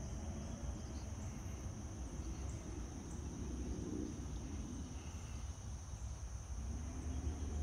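Insects droning steadily in a single high continuous band, with a low rumble underneath.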